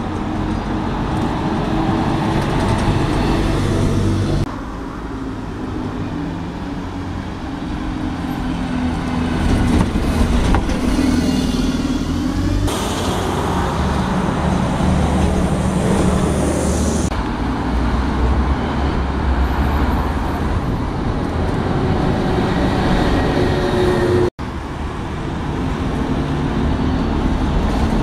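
Buses and a coach driving past on a town street, engines running as they pass and turn, with road traffic around them. The sound comes in several takes that cut off abruptly from one to the next.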